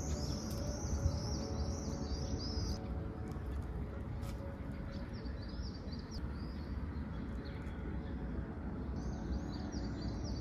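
Quiet background music with high, repeated chirping over a steady low rumble of wind on the microphone.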